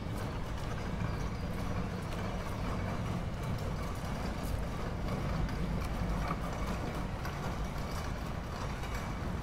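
City street ambience: a steady low rumble of traffic, with footsteps on stone paving.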